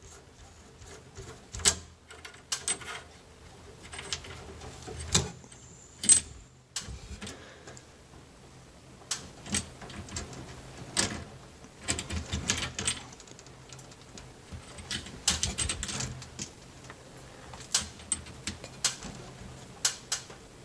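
Irregular metallic clicks and clinks of a wrench and a loosened copper refrigerant-line fitting being handled, over a faint steady low hum.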